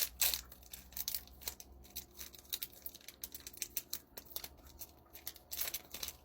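Plastic snack wrapper of a matcha Kit Kat being torn open and crinkled by hand: a run of irregular, sharp crackles.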